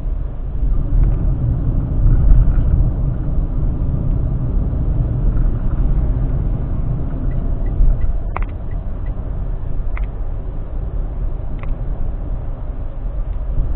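Steady low rumble of road and engine noise inside a moving car's cabin, with a few faint clicks in the second half.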